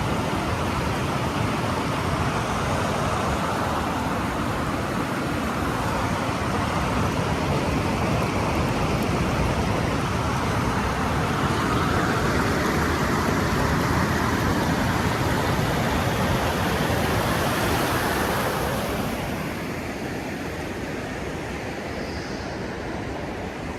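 Rushing river water: a steady, even rush of noise that drops a little in level and gets duller about three-quarters of the way through.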